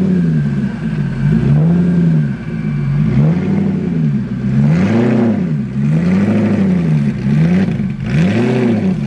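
Koenigsegg CCXR Trevita's twin-supercharged V8 revved over and over in short blips, its pitch rising and falling about once a second.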